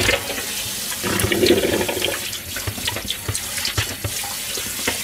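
Kitchen tap running onto a metal grill tray in a stainless steel sink as the tray is rinsed and scrubbed with a sponge, with scattered light clicks and knocks.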